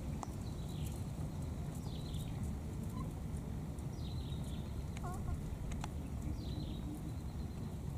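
A short, high animal call that falls in pitch, heard three times about two seconds apart over a steady low background rumble.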